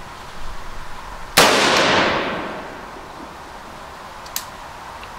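A single rifle shot about a second and a half in, from an AR-style rifle, its report echoing and dying away over about a second. It is one shot of a group fired to zero the scope. A short sharp click follows near the end.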